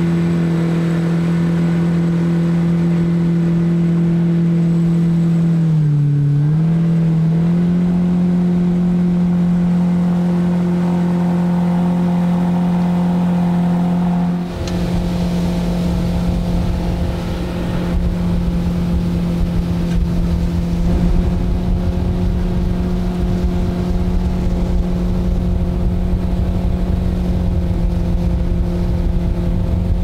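Mercury jet outboard on a jet boat running at a steady cruising speed. Its engine note holds even, apart from a brief dip and recovery in pitch about six seconds in. About halfway through, a low rumble joins under the engine.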